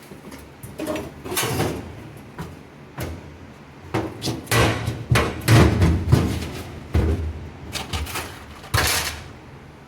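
A run of irregular knocks and clunks, like metal parts being handled and struck, with the loudest cluster in the middle.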